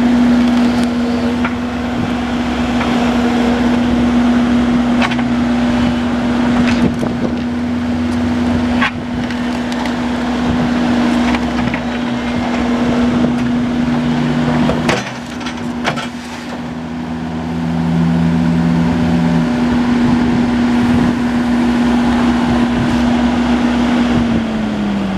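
Link-Belt 135 Spin-Ace crawler excavator running, with a steady whine over the diesel engine and a few sharp knocks along the way. The deeper working sound shifts for a few seconds past the middle, and the whine falls in pitch near the end as the machine slows down.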